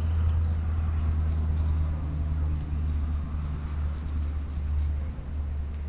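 A steady low rumble, with faint clicks and scrapes of hands working a fish and a scaling tool.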